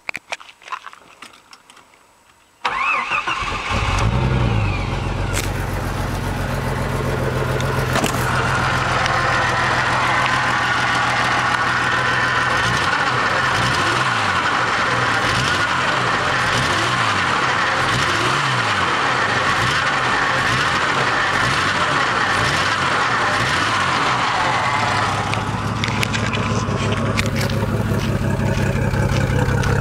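1987 Jeep Cherokee XJ engine catching and starting a little under three seconds in, then running. Through the middle its low note wavers unevenly before steadying near the end, a sputter that the owner takes for a possible misfire.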